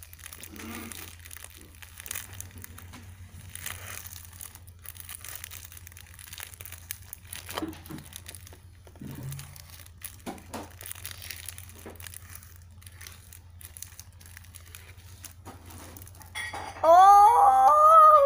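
Soft crinkling and small clicks of clear plastic packaging being handled. Near the end, a child's loud drawn-out vocal exclamation, its pitch rising and wavering.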